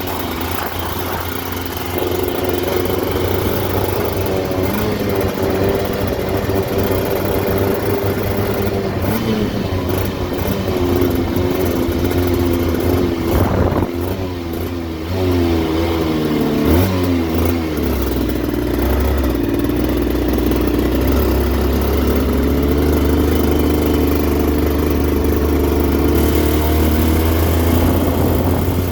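Aprilia RS125's single-cylinder two-stroke engine running, its pitch rising and falling a few times in the middle, then holding steady for about the last ten seconds.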